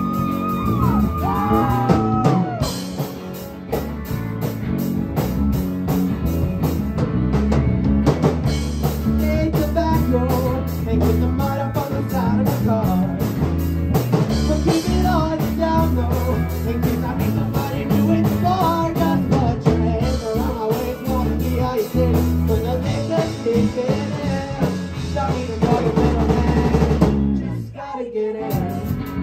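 Live rock band playing: drum kit, electric guitar and bass, with a singer's vocal through the PA. The music drops out briefly near the end before coming back.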